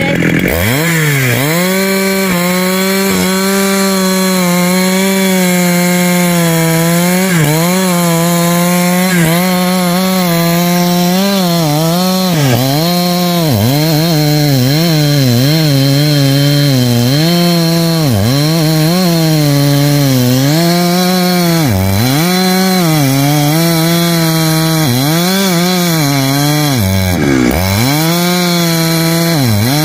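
Husqvarna 365 two-stroke chainsaw cutting into a tree trunk. The engine note sags and picks back up every second or two as the chain bogs under load in the wood.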